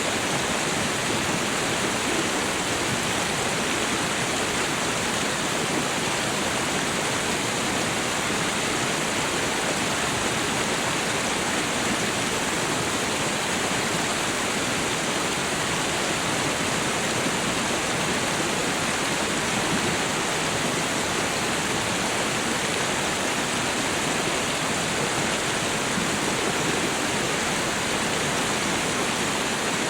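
Waterfall: falling water rushing with a steady, even roar that does not change.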